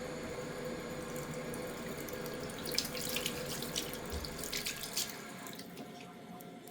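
Steady rush like running water, with a cluster of sharp clicks in the middle; the rush eases off about five and a half seconds in.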